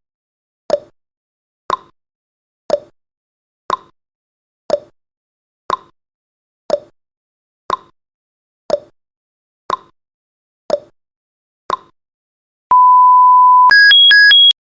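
Countdown timer sound effect: a clock-like tick-tock once a second, alternating between two pitches, about a dozen times. Then a steady beep lasting about a second, and near the end an alarm of two high beeps alternating quickly as the timer reaches zero.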